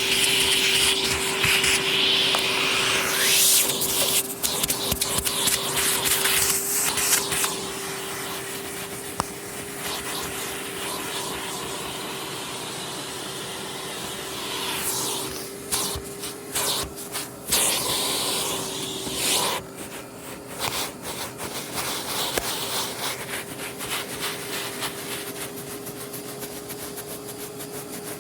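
Vacuum cleaner running over carpet: a steady motor whine under a suction hiss that swells and fades as the nozzle is pushed back and forth.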